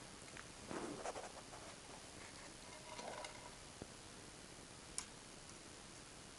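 Faint handling sounds from taping a fish net's frame: two short rustling, crinkling bursts, about a second in and about three seconds in, and two sharp clicks later on.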